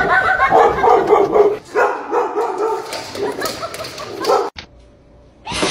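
Dog barking and whining in a run of excited calls, which stop about four and a half seconds in. A short rush of noise follows near the end.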